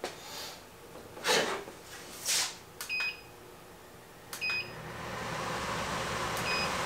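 WEN 3410 air filtration unit beeping three times as it takes commands from its remote. After the second beep its fan starts and spins up to a steady rush of air. Two short rustles come before the first beep.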